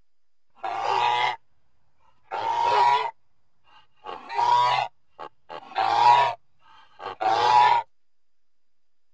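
Designed Oviraptor dinosaur creature calls: five short, pitched calls, each under a second, about one every one and a half seconds, with a few short clicks between the third and fourth.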